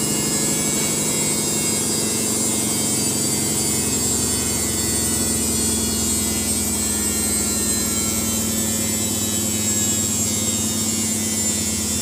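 Samsung front-loading washing machine drum spinning, its motor giving a steady hum with a high whine over it.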